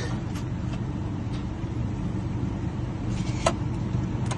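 Vehicle engine idling steadily, with a few light clicks over it.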